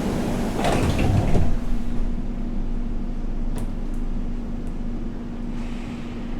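Doors of an 81-740/741 'Rusich' metro car sliding shut, closing with a thump about a second and a half in, followed by the steady hum of the standing train and a few faint clicks.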